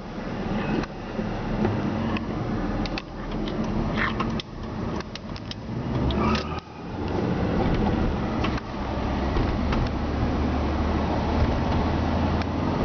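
Car driving, engine and tyre rumble heard from inside the cabin, with a few short clicks and knocks in the first half. The rumble grows louder and steadier from about halfway.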